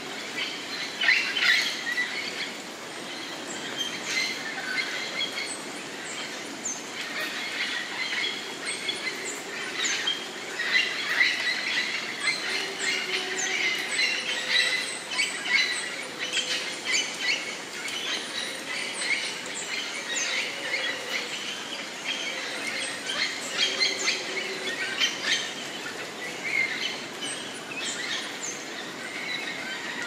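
Many birds chirping and calling over one another in a busy, continuous chorus of short, high notes, over a steady background hiss.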